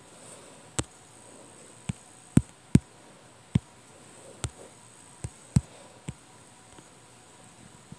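A string of sharp, irregular taps on a touchscreen, about nine or ten, made while drawing; two of the loudest come close together about two and a half seconds in.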